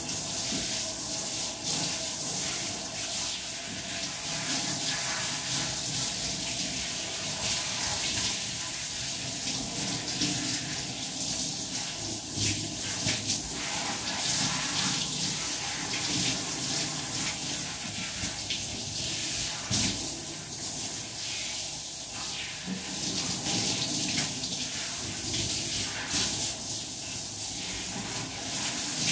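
Handheld shower head spraying water steadily over a wet dog's coat and onto the shower floor.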